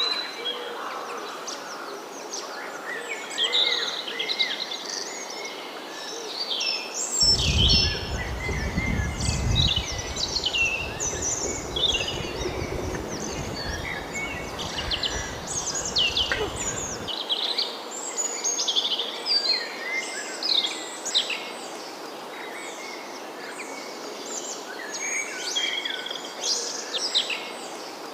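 Several birds chirping and singing in a busy mix of short, overlapping calls over a steady background hiss. A low rumble comes in about seven seconds in and stops about ten seconds later.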